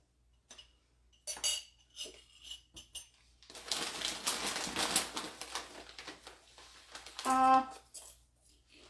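A glass jar clinks a few times as it is handled and set down, then a snack bag of popcorn crinkles for a couple of seconds as a hand reaches in. Near the end comes a short hummed voice sound as the popcorn is tasted.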